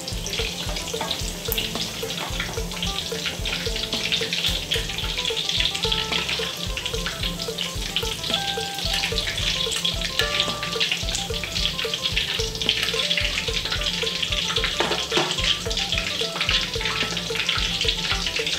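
Tod mun, Thai pork and shrimp fritters wrapped around vegetables, deep-frying in hot oil in a wok: a steady dense sizzle with fine crackling, the fritters cooked through. Soft background music plays underneath.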